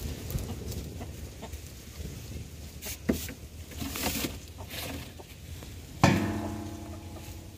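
Chickens clucking, with a sudden loud ringing sound about six seconds in that dies away over a second and a half.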